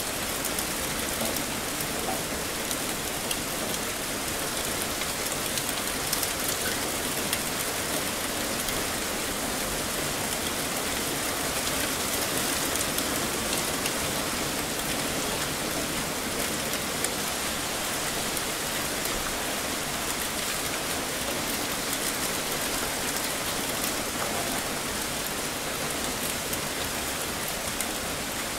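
Heavy rain falling steadily on surfaces: a dense, even hiss flecked with fine drop ticks.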